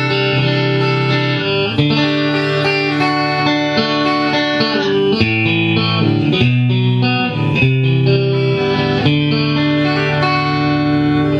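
Fender Mexican-made Stratocaster electric guitar being played, a run of ringing notes and chords that change every second or so.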